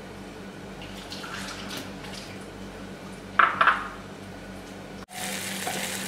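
Low steady kitchen background with a short ringing clink of dishware about three and a half seconds in. About five seconds in the sound cuts to onions and garlic sizzling in oil in a pot as a wooden spoon stirs them.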